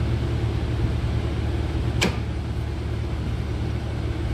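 A steady low mechanical hum throughout, with one sharp click about two seconds in as the stick electrode holder's cable plug is pushed into the welder's front-panel socket.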